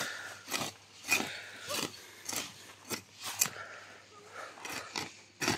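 A string of short scraping crunches on dry garden soil and weeds, about one every half second.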